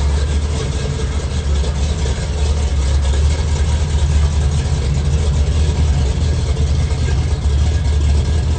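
Chevy 3100 pickup's 468-cubic-inch big-block V8 running at a steady low idle as the truck crawls past, slightly louder around the middle.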